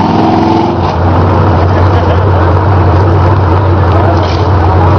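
Ford 4x4 mud truck's engine running hard under load as the truck drives through deep mud and water, a loud, steady low drone with a brief change in pitch in the first second.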